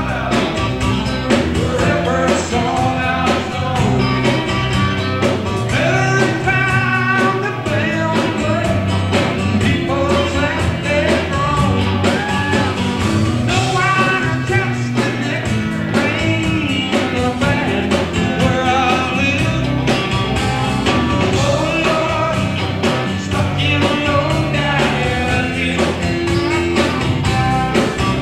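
A rock-and-roll band playing live in concert, with a full band sound running continuously.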